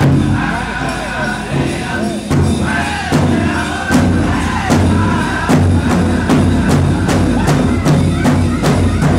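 Powwow drum group singing in chorus over a steady, even beat on a large powwow drum.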